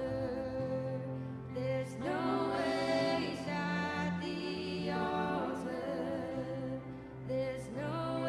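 Slow worship song: a singing voice with held, wavering notes over sustained instrumental backing.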